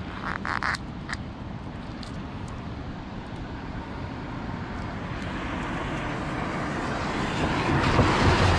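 A vehicle passing on a wet road, its tyre hiss growing steadily louder toward the end. A few light handling clicks and rustles come about half a second in.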